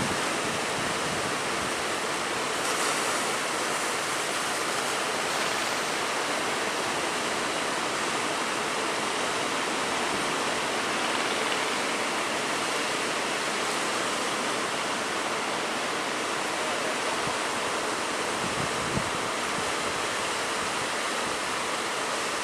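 Big sea waves in rough weather: a steady, unbroken rush of surf.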